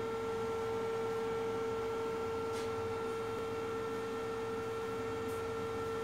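A steady hum: one unchanging mid-pitched tone with fainter higher tones above it, over a low background hiss.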